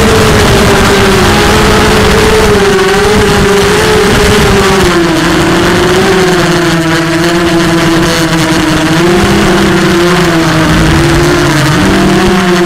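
Bolt 250 quadcopter's Cobra 1960KV brushless motors and propellers whining under a loud rush of air, heard from the onboard camera. The pitch wavers and sags as throttle eases, then jumps back up near the end as power is added.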